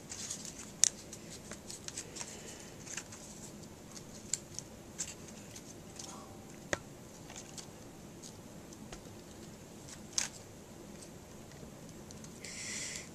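Scattered small clicks and ticks of folded paper being handled, with a short rustle near the end.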